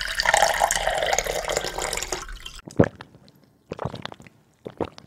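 Intro sound effect of liquid pouring for about two and a half seconds, followed by a few separate drips.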